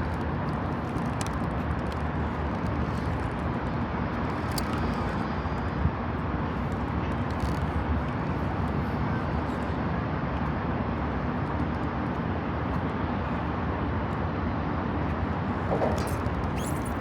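Steady rushing wind noise buffeting the microphone high on a skyscraper's facade, with a few faint clicks.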